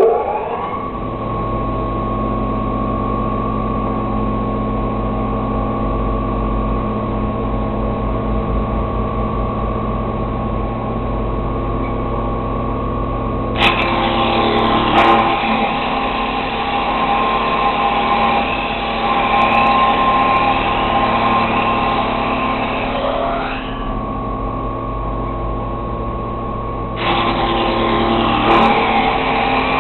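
Broom-handle making machine spinning up at the start, then running with a steady motor hum and whine. About halfway through, a wooden blank is fed in by the roller and cut for about ten seconds, adding a loud, full cutting noise over the motor. A second blank goes in near the end.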